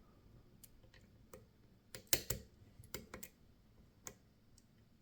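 Irregular small metallic clicks of a thin lock pick working the pin stacks of a Yale B pin-tumbler lock under tension, with a quick cluster of clicks about two seconds in.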